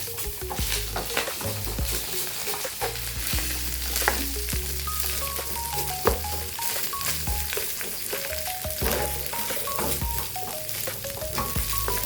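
Rice frying in oil with chicken and aromatics, sizzling steadily as a spatula stirs it, with a few sharp knocks of the spatula against the pan. A light melody with a bass line plays over it.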